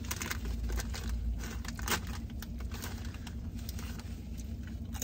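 Close-up chewing and small crackles of a sandwich's paper wrapper, over a steady low hum inside a car.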